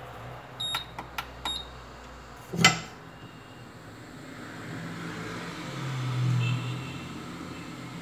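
Hot air rework station being started: a few quick button clicks with short beeps, a sharp knock just before the three-second mark, then the hot air blower starting and building to a steady rush of air with a low hum.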